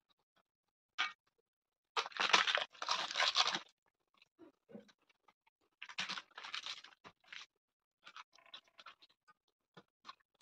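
Crisp papad crackling as it is broken and crunched, in two loud bursts about two and six seconds in, with scattered small clicks of eating between.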